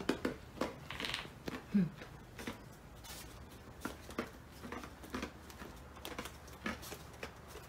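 Scattered light taps and clicks of footsteps on a wooden floor in a quiet room. A short low sound a little under two seconds in is the loudest.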